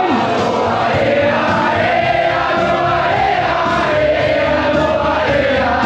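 A crowd singing along together in chorus to loud music, holding long wavering notes.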